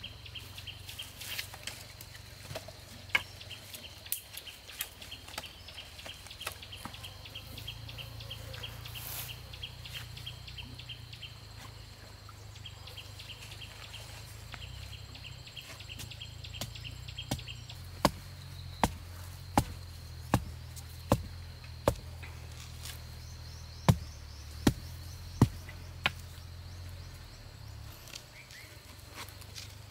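Insects trilling in rapid pulses, then a blade chopping into wood in steady strokes, a little more than one a second, from a bit past halfway.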